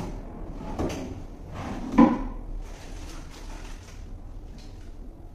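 Rummaging through a storage box under a workbench for a polishing pad: things shuffle and knock together, with one sharp knock about two seconds in.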